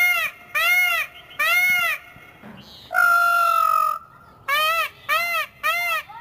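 Indian peafowl calling: a run of short, arching, nasal honks, about two a second, breaks for one long, level call about three seconds in, then the quick honks start again.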